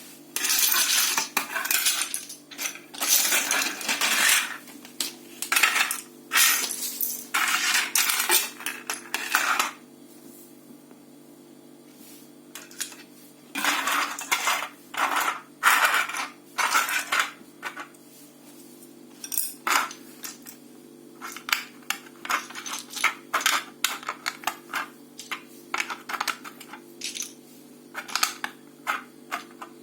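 Small loose mosaic pieces clattering and rattling in repeated bursts, as if being poured and shaken. The bursts pause for a few seconds about a third of the way in, then return as sparser clicks.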